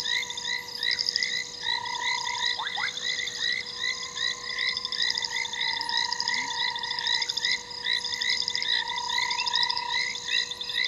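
A dense chorus of many frogs calling together at night, with short notes repeating several times a second over a steady trilling hum.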